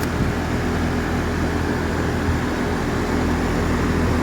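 Goodman 3.5-ton heat pump running steadily in cool mode: an even compressor hum with the whoosh of the outdoor fan.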